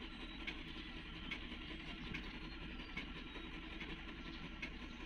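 Heavy equipment's diesel engine running steadily at idle, with light sharp ticks at irregular intervals over it.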